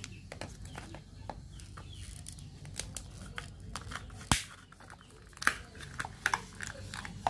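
Hard plastic clicks, taps and light rustling as an electric gallon water pump is handled and its bottom end worked with the fingers, with a sharp click about four seconds in and another a second later.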